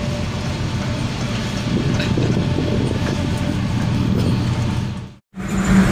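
Steady machinery drone aboard a squid-jigging fishing vessel, with a low hum underneath. It cuts out abruptly for a moment near the end.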